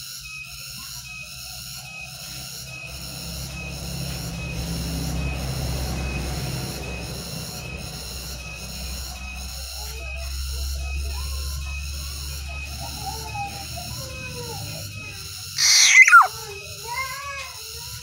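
Caged black-naped oriole calling: one loud, harsh call sweeping down in pitch about sixteen seconds in, among softer whistled notes in the latter part. A steady rapid high pulsing goes on in the background, and a low rumble swells and fades in the middle.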